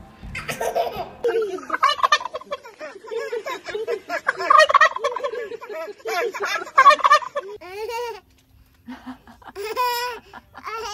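White domestic turkey gobbling over and over for several seconds, then stopping.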